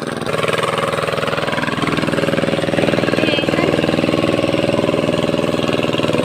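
A small engine running steadily at an even speed, with a fast regular chugging pulse.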